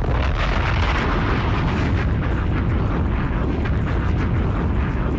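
Loud, steady rumbling noise with dense crackle through it, starting abruptly and holding at an even level.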